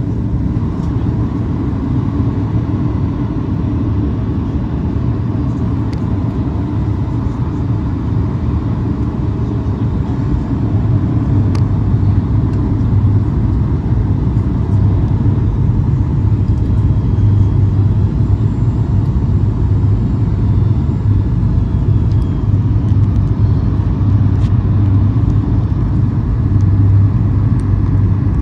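Steady low rumble of a moving vehicle heard from inside, growing a little louder about eleven seconds in.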